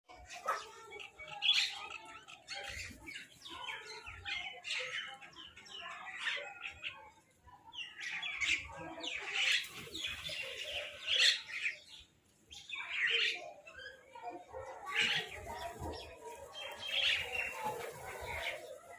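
Crows and mynahs calling over one another in a dense, continuous chatter of many short overlapping calls, busiest about halfway through and again near the end.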